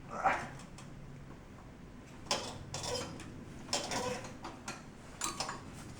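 Irregular metal clinks, knocks and scrapes from hands and tools working a drive belt onto a snowblower's pulleys, a handful of short sounds spread about a second apart.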